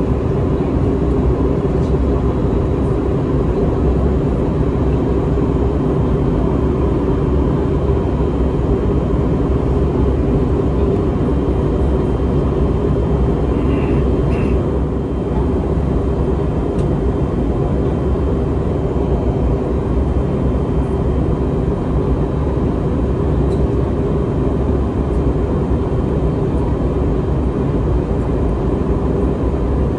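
Steady cabin noise of an Airbus A321neo airliner on its approach: engine and airflow hum with a few constant tones. A short, faint double tone sounds about halfway through.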